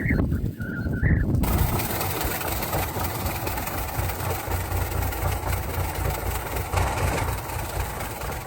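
An engine starts running suddenly about a second and a half in, a steady low rumble with a hiss over it.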